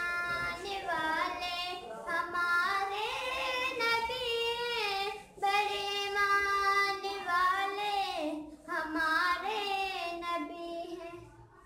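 A young girl singing solo without accompaniment, holding long wavering notes, with short breaths about five and a half and eight and a half seconds in.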